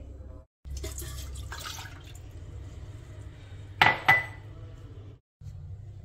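Milk poured from a mug into a stainless-steel electric multi-kettle pot, with a low trickling and splashing. Just after four seconds in come two sharp clinks with a short ring, the loudest sounds.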